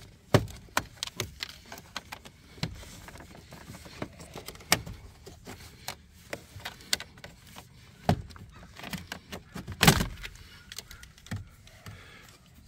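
Irregular clicks, knocks and rattles of plastic dashboard trim, clips and wiring being handled inside a car's dash, with a louder knock just after the start and another near ten seconds.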